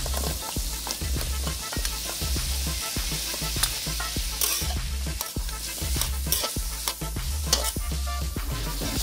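Diced carrots dropped into a hot aluminium wok, the pieces clicking onto the metal over the steady sizzle of frying food, and a metal spatula scraping and stirring the pan near the end. Bass-heavy background music runs underneath.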